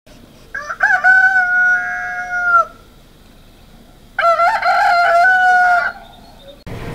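Two long, drawn-out animal calls, each about two seconds, rising at the start and then holding one pitch, about a second and a half apart. A steady low rumble starts suddenly just before the end.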